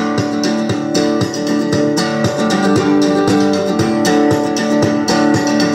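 Guitar music with a steady beat of about two a second, played loud through the UTV cab's new JBL audio system speakers.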